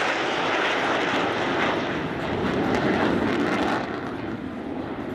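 An airplane flying past, its engine noise a loud, steady rush that thins and falls away near the end as it moves off.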